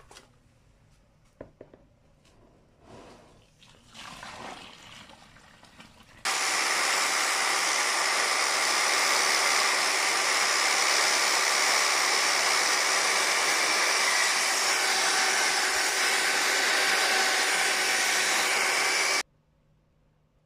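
A machine running with a loud, steady whirring hiss carrying a few constant hum tones. It starts abruptly about six seconds in and cuts off sharply about a second before the end. Before it there are only faint clicks and handling noises.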